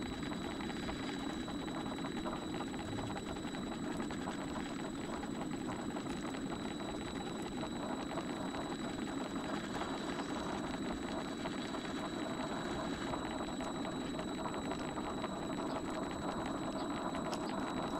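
Vevor MX400 mini lathe running with its belt drive and change gears uncovered: a steady mechanical whirr of belts and meshing gears with a constant high-pitched whine.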